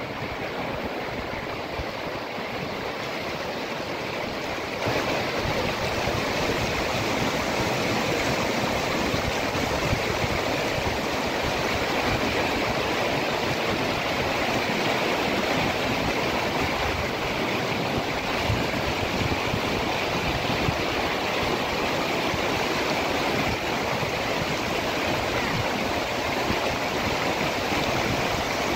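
Fast mountain river rushing over rocks: a steady, loud rush of water that gets louder about five seconds in.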